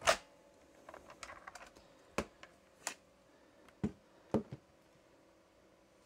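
Plastic clicks and knocks of a ThinkPad X41T tablet being lifted off its unlocked docking station: a sharp click at the start, a patter of light ticks about a second in, then several separate knocks up to about four and a half seconds in.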